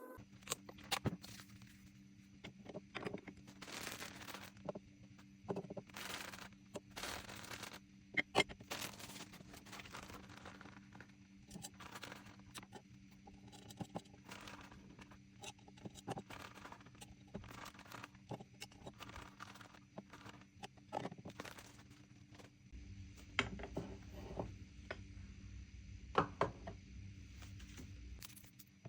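Small objects being handled and set down on a table: many scattered clicks and knocks, with stretches of scraping and rustling, over a steady low hum.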